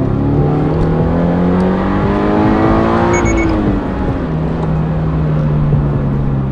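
Toyota GR86's 2.4-litre flat-four running through an HKS Hi-Power Spec-L2 cat-back muffler. The revs climb for about three seconds, then fall away and settle into a steady lower note, with three short high beeps at the top of the rise.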